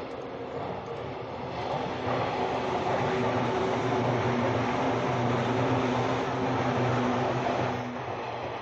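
JNR-era 185 series electric train passing close by: a steady hum from its motors and gears over the rumble of wheels on the rails, growing louder about two seconds in and falling away near the end.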